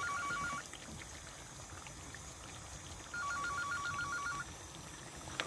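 Telephone ringing with a rapid warbling trill: the end of one ring at the start, then a second ring of just over a second about three seconds in.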